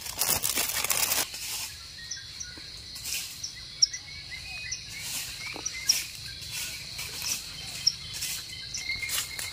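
Plastic bag rustling for about a second. Then quieter forest sounds: small birds chirping, a steady high insect drone, and a few sharp crackles in dry leaf litter as someone walks.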